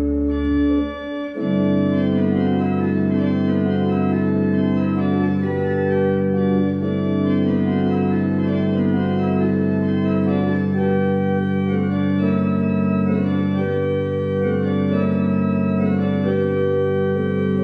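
Church pipe organ playing sustained chords. After a brief dip about a second in, a deep held pedal note enters and stays under changing chords.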